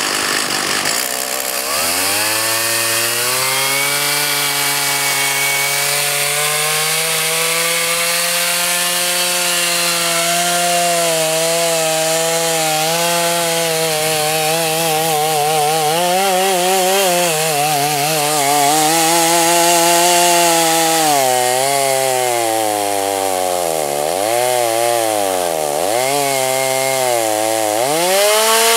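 Two-stroke chainsaw in a chainsaw mill, ripping lengthwise through a log under load. The engine revs up about a second and a half in and holds steady, then its speed dips twice near the end before picking up again.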